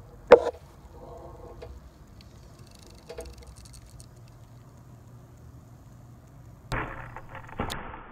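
A loud sharp click close to the microphone near the start. About three-quarters through, the sharp snap of a shot at the whitetail deer, then rustling and crashing in dry leaves as the deer jumps away, with a second crack a second later.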